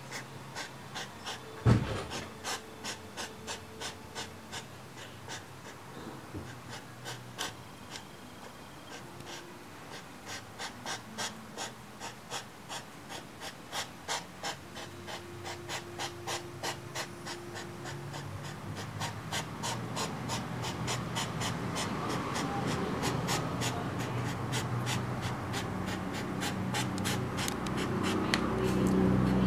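European hedgehogs courting: a rhythmic series of short huffing puffs, about two a second, quickening later on. There is one sharp knock about a second and a half in.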